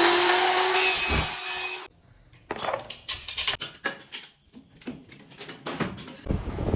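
A loud rushing noise for about two seconds, stopping abruptly, then a string of sharp wooden knocks and clicks, as of wooden panels or tools being handled.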